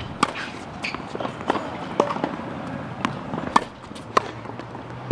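Tennis ball being hit with a racquet and bouncing on a hard court: a string of sharp pops and taps, several a second, with the player's footsteps on the court between them.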